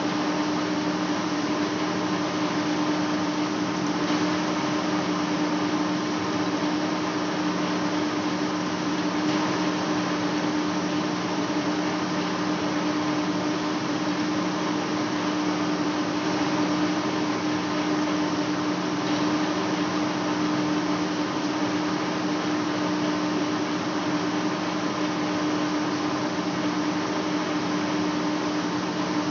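Large lathe running steadily, a big metal flange spinning in its chuck for facing: a constant machine hum with a steady low tone over an even wash of motor and gearbox noise.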